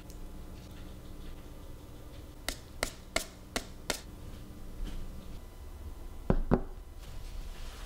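About five quick sharp taps of kitchenware, then a ceramic bowl of food set down on a table with two low knocks a moment apart, the loudest sounds here. A steady low hum lies underneath.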